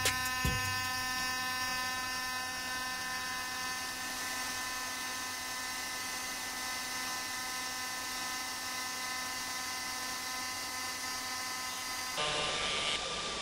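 AC TIG welding arc on aluminum from a Miller Multimatic 220 AC/DC welder with the AC frequency set to 150 Hz: a steady buzz that cuts off about a second before the end.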